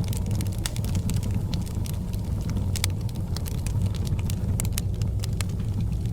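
Wood fire burning in a fireplace: a steady low rumble with irregular crackles and pops scattered through it.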